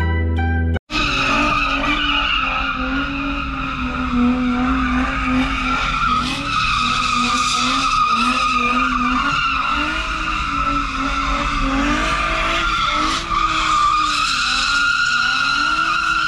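A car drifting: its tires squeal steadily and loudly while the engine revs rise and fall underneath. A moment of plucked-string music comes first and cuts off abruptly about a second in.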